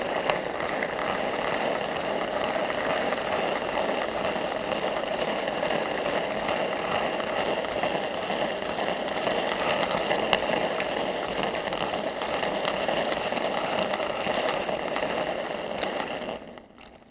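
Model railway goods train running along the track, heard from a camera riding on the train: steady running noise of wheels on rails and the wagons rattling, which fades away near the end.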